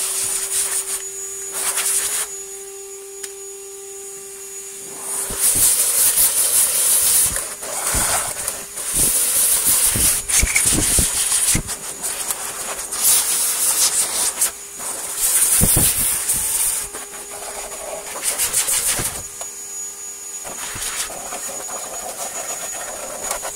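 Compressed air blowing dust out of a Shark vacuum cleaner's dirty filters, in repeated hissing bursts, some a second or two long, over a steady hum.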